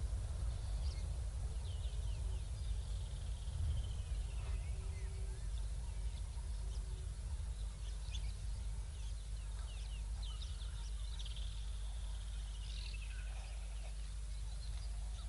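Wild birds calling around a bushveld waterhole: scattered short chirps and whistles, and twice a slowly falling trill, over a steady low rumble on the outdoor microphone.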